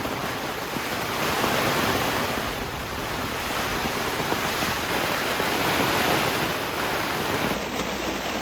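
Heavy rain pouring down: a steady, dense hiss of a downpour, changing character briefly near the end.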